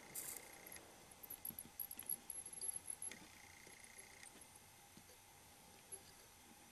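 Faint crackling and tiny pops of flux boiling under a soldering iron tip held on a header-pin solder joint. A faint high steady tone sounds twice, each time for about a second, near the start and about three seconds in.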